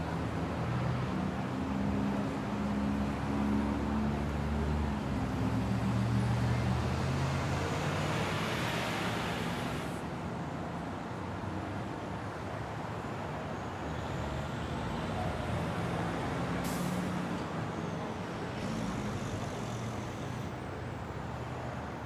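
City street traffic, with a heavy vehicle's engine running close by at first. About eight seconds in a rushing hiss builds and cuts off suddenly. A single sharp click follows later.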